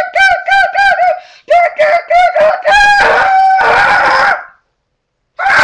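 A boy's high-pitched falsetto voice in rapid repeated yelps, about four or five a second, then a longer drawn-out squeal that stops about four and a half seconds in, and one short yelp at the very end.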